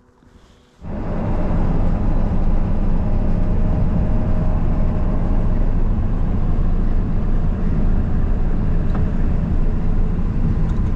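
Pickup truck driving at steady speed, its engine and road noise starting suddenly about a second in and running steadily.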